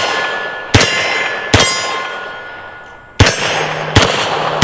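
Beretta M9 9mm pistol fired four times at an unhurried pace, the first two shots close together and the last two after a short pause. Struck steel targets ring after the shots, and the ringing from a hit just before carries over at the start.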